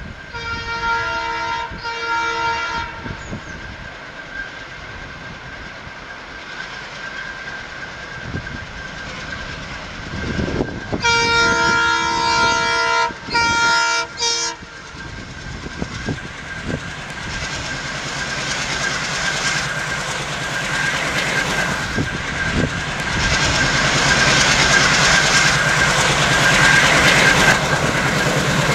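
ALCO WDG 3A diesel locomotive approaching with its train: a multi-tone horn sounds twice near the start and again in three blasts around the middle, the last two short. Over a steady high whine, the engine's rumble and the wheels' clickety-clack grow louder as it nears.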